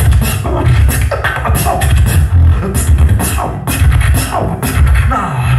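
Live beatboxing on a microphone: a deep, continuous bass line under a fast run of sharp snare and click sounds, with brief gliding pitched sweeps.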